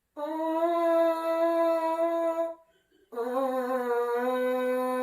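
Two held buzzes on a French horn mouthpiece alone, lips buzzing into it as a warm-up. The second buzz is pitched lower than the first, with a short gap between them.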